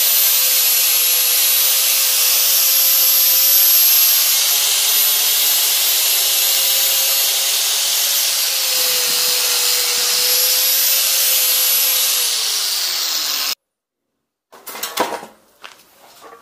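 Angle grinder running at steady speed with a high whine, its disc working on a steel hammer head held in a vise. Near the end its pitch falls as it winds down, then it cuts off. After a short silence come a few sharp metallic clicks and knocks.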